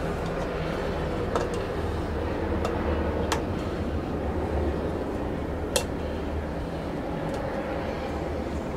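A few sharp clicks and taps from handling a cone air filter and its plastic intake pipe as the filter is worked onto the pipe, the sharpest about six seconds in, over a steady low hum.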